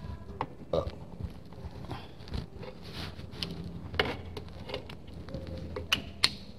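Brake shoes and return springs being worked off a 1964 VW Beetle's drum brake backing plate by hand: scattered metallic clicks and clinks, the sharpest about four seconds in and twice near the end, over a steady low hum.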